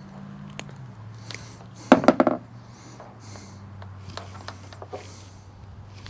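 Wire strippers clicking as red wire is cut back, with a short, loud burst of rapid clicks about two seconds in. Breathing close to a clip-on microphone comes and goes throughout.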